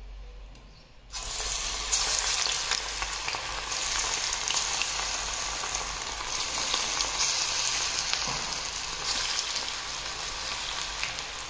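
Hot oil in a steel kadai sizzling as handfuls of punugulu batter are dropped in by hand to deep-fry. The sizzle starts suddenly about a second in and carries on, swelling and easing as more batter goes in.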